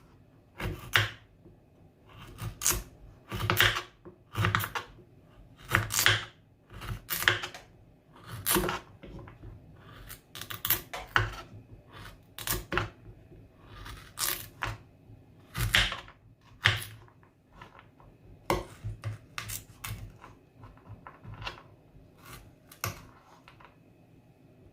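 Kitchen knife cutting peeled bitter kola into small pieces: a string of sharp, uneven cuts and knocks against the board, with short pauses between runs.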